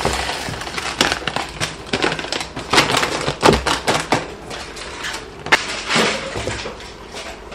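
Uncooked rice being poured from plastic bags into a plastic bowl: grains pattering and rattling into the bowl, with the crackle of the bags being handled and shaken out.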